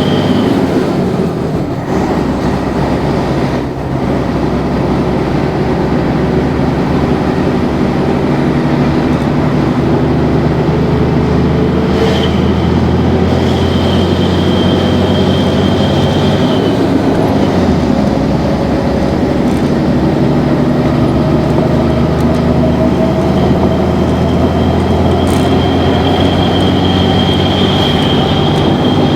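Mercedes-Benz OM 447 LA six-cylinder turbodiesel of an O-400 bus running under way, heard from inside the bus, with a high turbo whistle that comes and goes twice. The engine's pitch dips briefly near the start and climbs slowly in the second half.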